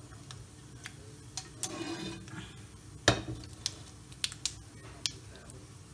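Mustard seeds spluttering in hot coconut oil in a nonstick kadai during tempering: irregular sharp pops, the loudest about three seconds in.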